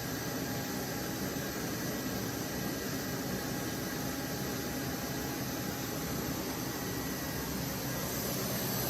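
Diesel-driven portable screw air compressor running steadily under load with its discharge valve open: an even, rushing noise with a faint steady hum.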